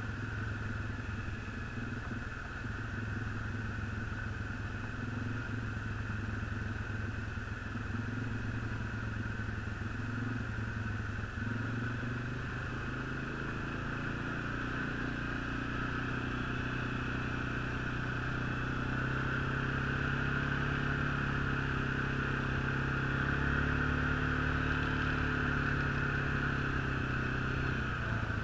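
Snowmobile engine running steadily under way. Its pitch steps up a little about halfway through and stays higher.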